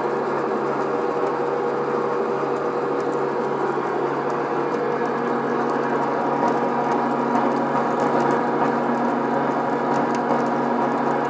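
RIDGID 535 power pipe-threading machine running steadily, turning ribbed rebar while its die head cuts threads on it. The sound is an even hum with faint ticking over it.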